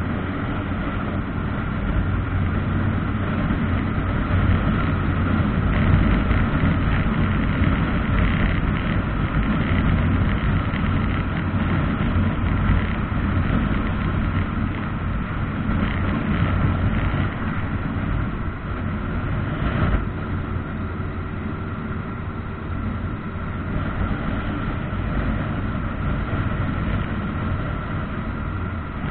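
Motorcycle engine running steadily at road speed, mixed with wind and road noise. There is one short knock about two-thirds of the way through.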